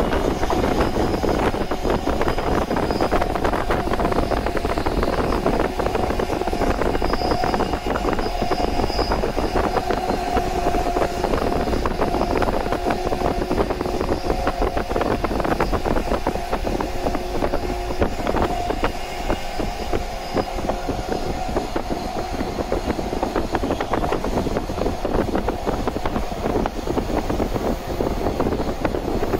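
JR 185 series electric train running at speed: a steady rumble of wheels on rail with a faint whine.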